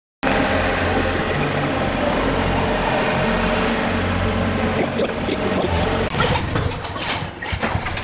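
Ice rink ambience: a steady low machine hum under a noisy wash. About five seconds in, scattered clicks and scrapes come in, typical of skates and sticks on the ice.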